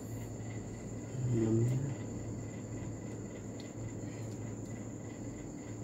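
Steady high-pitched trill of crickets over a low background hum, with a single short spoken word about a second in.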